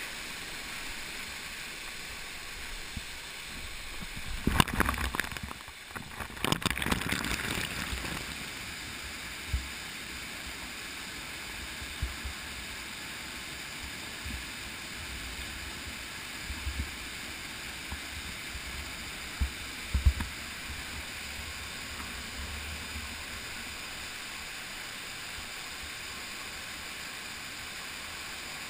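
Steady rush of a waterfall pouring into a canyon pool, with two louder noisy swells a few seconds in and a handful of short, dull knocks later on.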